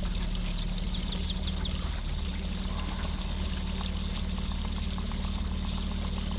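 Electric trolling motor running steadily with a low hum as it drives a canoe, with water gurgling and trickling along the bow.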